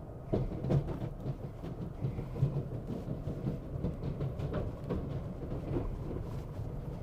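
Pickup truck driving, a steady low road rumble with repeated knocks and rattles as it goes over an uneven road.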